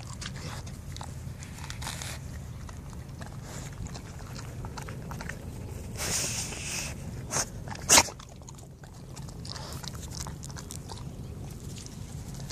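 A pit bull tearing and chewing mouthfuls of grass close up: a run of small crisp crunches and rips over a steady low rumble. The crunches grow louder about six seconds in, and the loudest is a sharp snap about eight seconds in.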